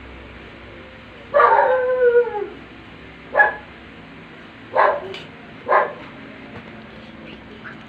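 A dog gives one drawn-out howl that falls in pitch, then barks three times in short single barks.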